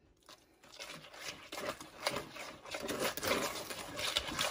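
Wire balloon whisk beating egg yolks into creamed butter and sugar in a plastic bowl: a rapid run of scraping clicks against the bowl, starting about half a second in.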